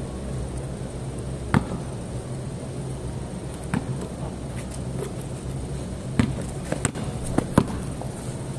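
Basketball bouncing on a concrete court: single bounces a couple of seconds apart, then several quicker bounces near the end, over a steady low hum.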